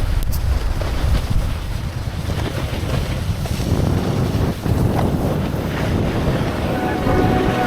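Wind buffeting the microphone: a loud, uneven rumble of noise with no clear tones. Music fades in near the end.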